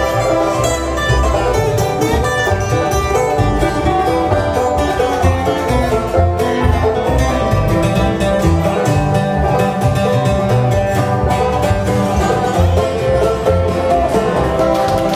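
Bluegrass band playing live: banjo, strummed acoustic guitar, lap slide guitar and upright bass, with no singing.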